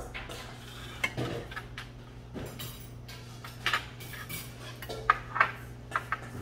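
Metal chopsticks clinking and scraping against a stainless steel bowl as mulhoe (cold raw-fish soup) is mixed, in irregular clicks with the loudest few about five seconds in, over a steady low hum.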